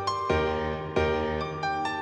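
Slow instrumental piano music without singing: soft chords struck about every three-quarters of a second, each ringing and fading over a low bass note.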